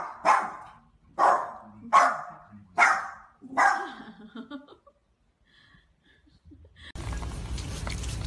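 Small dog barking, about six sharp barks less than a second apart, fading out after about four seconds. Near the end a steady hiss-like noise takes over.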